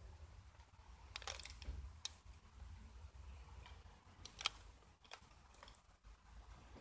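Faint outdoor ambience: a low steady rumble with a handful of short, light clicks and ticks scattered through it, the sharpest about four and a half seconds in.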